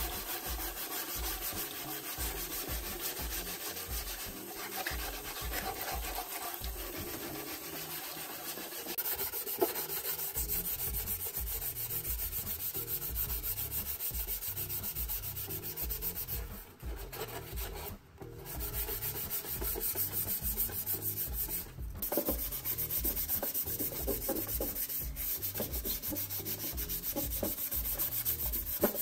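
Hand sanding of a motorcycle fender: an abrasive pad rubbed back and forth over the metal in steady repeated strokes, pausing briefly a couple of times partway through.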